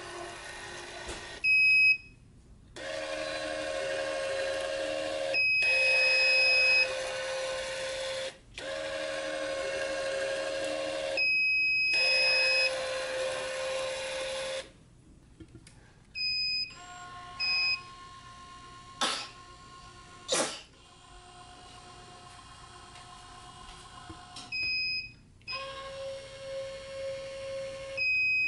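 Sound test of electronic racket-stringing tension heads. A Wise 2086 tension head's motor runs in several loud pulls of a few seconds each, with short high beeps between them. From about halfway, a quieter motor whine with beeps and two sharp clicks follows: the Siboasi S616's tension head, which is very quiet next to the Wise.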